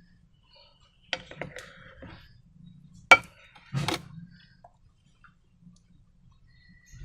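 Sharp clicks and taps from things being handled while making slime: a cluster of clicks about a second in, a single loud crack about three seconds in, and a short rustling knock just after it.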